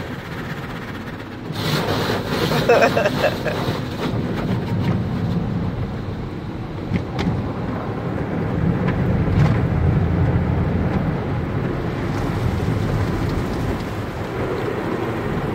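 Automatic car wash heard from inside the car's cabin: a steady rumbling rush of water spray and cloth washing strips sweeping over the body, with a few sharp knocks.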